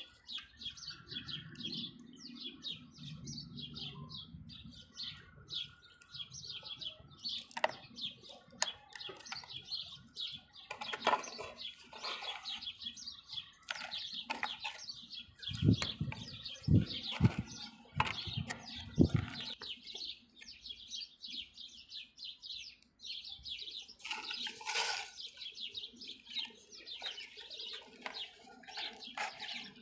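Small birds chirping continually, with a few dull knocks about halfway through.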